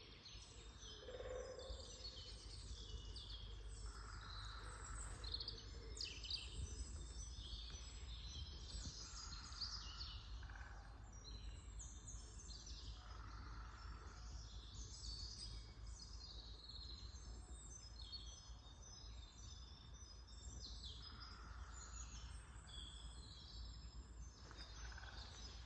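Several songbirds singing in an early-spring forest morning chorus: many short chirps and trills overlapping throughout, over a steady low rumble.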